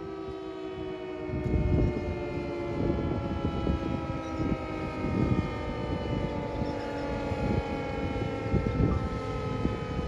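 Federal Signal Thunderbolt 1000AT outdoor warning siren winding down, its tone falling slowly in pitch as it coasts to a stop at the end of the alert signal. From about a second and a half in, wind buffets the microphone in low rumbling gusts, and this is the loudest thing heard.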